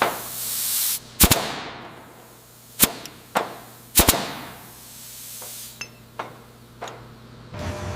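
Hissing bursts of compressed air and a handful of sharp metal knocks, the loudest about four seconds in, with lighter knocks near the end.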